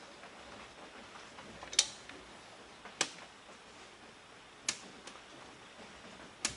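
Four sharp clicks, a second or more apart, the first the loudest, from hand work fitting the idler pulley on a supercharger's toothed belt drive.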